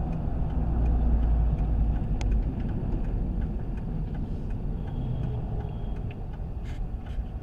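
Road and engine rumble of a moving car heard from inside the cabin. The low rumble eases after about two and a half seconds and the sound grows gradually quieter.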